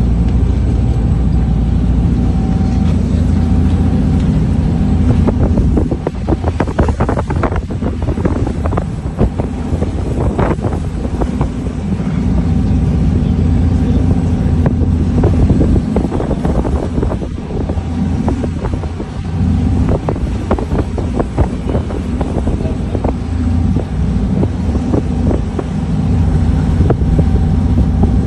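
Steady low drone of a passenger ferry's engines with a faint steady whine above it, and wind buffeting the microphone in two long stretches, roughly in the first and second halves.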